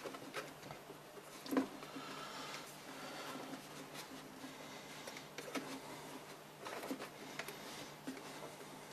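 Scattered light clicks and taps of parts being handled inside a computer case, with one sharper knock about one and a half seconds in.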